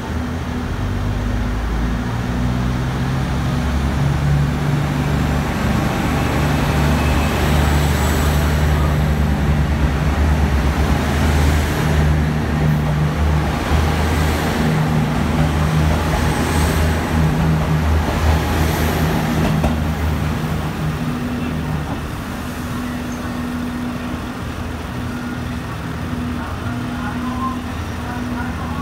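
KiHa 75 diesel multiple unit pulling away from a station: its diesel engines run under power and build in level, loudest for several seconds from about four seconds in as the cars pass close by, with a rushing sound from the cars going past. After about twenty seconds it fades as the train moves off, leaving a steady low engine hum.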